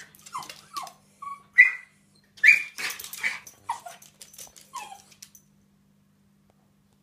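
West Highland White Terrier giving a rapid series of high-pitched yelps and whines, about ten in five seconds, the loudest near the middle, then falling quiet. It is the dog's excited reaction to a cat in the garden beyond the glass door.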